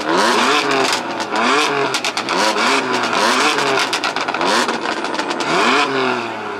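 A performance car's engine revved hard over and over, about once a second, each rev climbing in pitch and dropping back, with sharp crackles between the revs.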